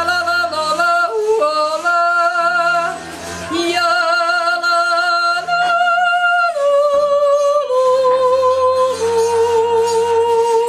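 A woman yodeling, jumping quickly between notes, then stepping down through long held notes in the final seconds.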